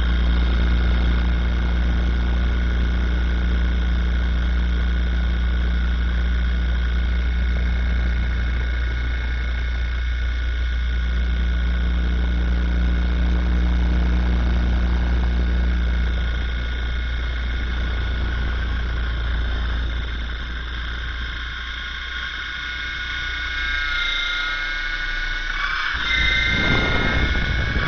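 RC helicopter's motor and spinning rotor, recorded from a camera riding on the rotor head: a loud, steady low drone under a high whine of several tones. Near the end the whine shifts in pitch as the rotor speed changes.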